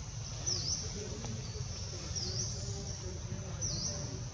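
A bird repeating a short, high call that dips and then rises in pitch, about once every second and a half, over a steady high hum and a low background rumble.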